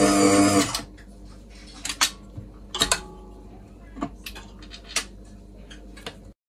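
Tilt-head stand mixer's motor running with a steady hum, then stopping under a second in as it is switched off. A series of sharp metallic clicks and clunks follows as the head's lock is released and the head is tilted up off the dough hook.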